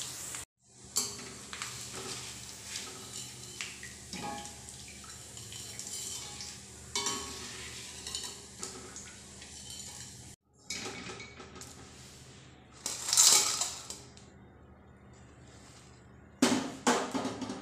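Metal slotted spoon and tongs clinking and scraping against a kadai as fried potato sev is lifted out of hot oil, with a louder scrape about two-thirds of the way through.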